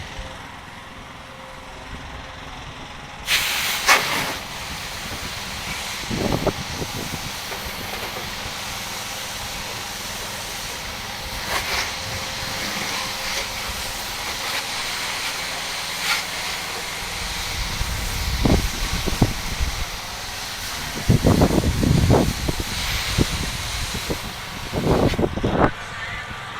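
Pressure washer spray hissing steadily, starting abruptly about three seconds in, with gusts of wind rumbling on the microphone, stronger toward the end.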